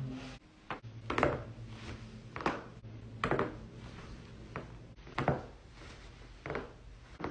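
Spinal joints cracking during back adjustments: a run of sharp pops, about seven or eight of them, spaced irregularly around a second apart.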